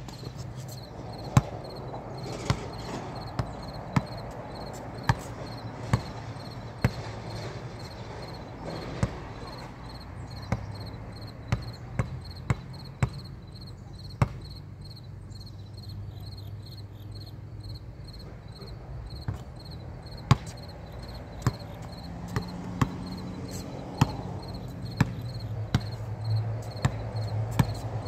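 Basketball bouncing on a concrete court: sharp single bounces, mostly about a second apart, with quicker runs of dribbling in places.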